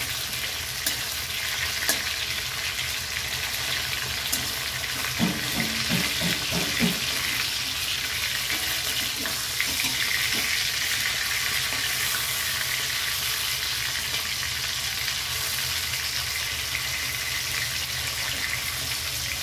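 Katla fish steaks sizzling steadily as they shallow-fry in hot oil in a metal kadai. A metal spatula clicks and scrapes against the pan a few times as the pieces are turned, with a short run of scrapes about five to seven seconds in.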